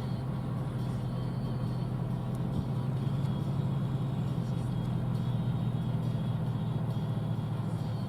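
John Deere S680 combine harvester running steadily through corn: a low, even engine drone with a few faint steady whines above it.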